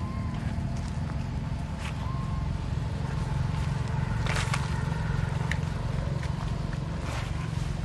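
Footsteps crunching through dry leaf litter, irregular crackles with a louder crunch about halfway through, over a steady low rumble.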